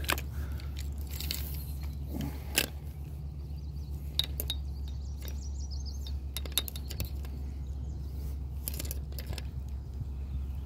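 Light clicks and clinks of fishing gear on a sit-on-top kayak, a handful of sharp taps spread out at irregular intervals, over a steady low rumble.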